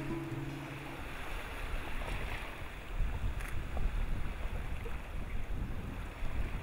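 Background music ends about a second in, leaving a steady low rushing of wind and ocean surf.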